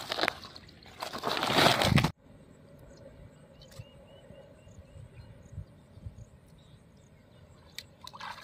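White woven plastic sack rustling loudly as a caught tilapia is handled inside it. The rustling cuts off abruptly after about two seconds, leaving quiet open-air ambience with a brief run of faint high chirps.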